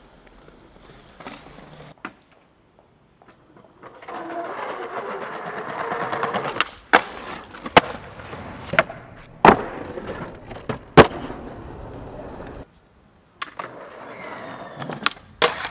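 Skateboard wheels rolling on pavement, broken by a string of sharp wooden clacks of the board popping and landing, about five in a few seconds. After a brief gap the rolling starts again, with two more clacks near the end.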